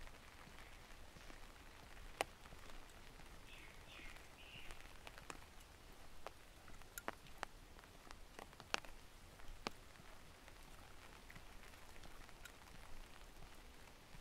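Light rain in a forest: scattered raindrops falling on surfaces with sharp, irregular ticks over a faint steady hiss, two drops standing out loudest, about two seconds in and near the middle.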